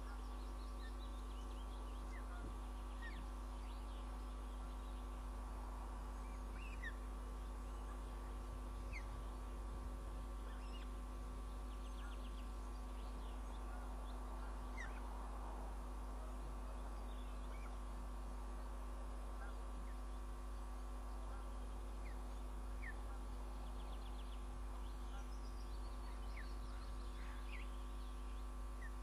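Faint, short, high bird chirps every second or two, some in quick little series, over a steady electrical hum.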